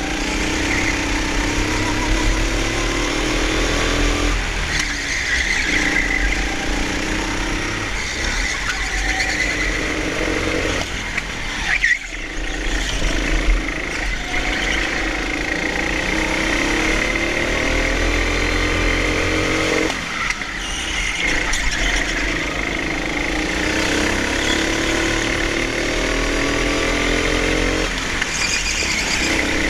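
Hire kart's Honda engine heard on board, revving up along the straights and falling back when the throttle is lifted for corners, several times over. Kart tyres squeal on the smooth indoor concrete through the turns.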